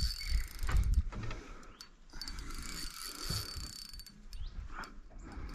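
Spinning fishing reel being cranked to bring in a hooked bream, its gears and line pickup making a steady mechanical whirring. There are heavy low knocks of rod and boat handling in the first second or so.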